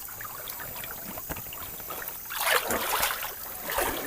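River water trickling and splashing, with a louder splash about two and a half seconds in and another near the end.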